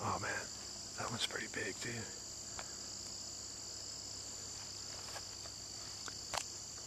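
Steady, high-pitched evening insect chorus of crickets. Low murmured voices come in the first two seconds, and a single sharp click sounds about six and a half seconds in.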